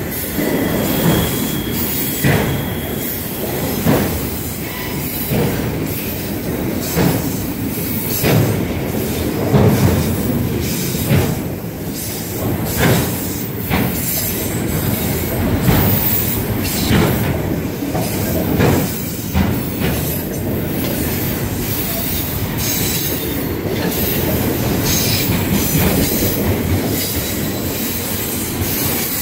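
Freight train of autorack cars rolling past close by: a steady rumble of steel wheels on rail, with repeated clacks every second or two as the wheels pass.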